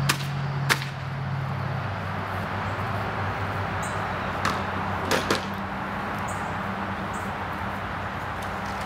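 Sharp hammer strikes: two near the start and three more about four and a half to five seconds in, over a steady low hum.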